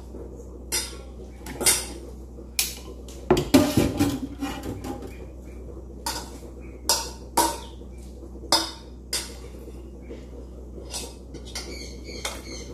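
Stainless steel mixing bowls and kitchen utensils knocking and clinking on a kitchen counter as chopped vegetables are handled. The knocks come singly at irregular times, with a louder run of clattering about three and a half seconds in, over a steady low hum.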